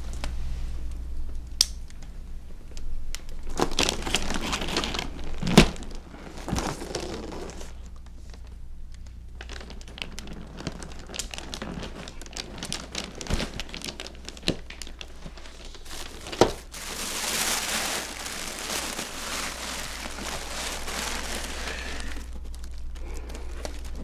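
Paper crumpling and tearing as a wrapped gift box is opened, in bouts of rustling with a few sharp knocks.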